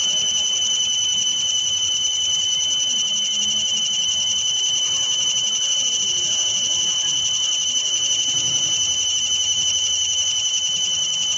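Fiber laser marking machine working, its scanning head giving a steady high-pitched whine with a fainter overtone above it.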